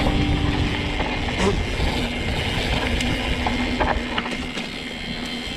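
Mountain bike riding over rough ground: a steady low rumble of wind and movement on the microphone, with scattered clicks and rattles from the bike.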